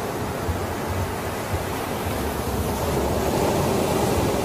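Ocean surf washing steadily, an even rushing noise that swells a little near the end.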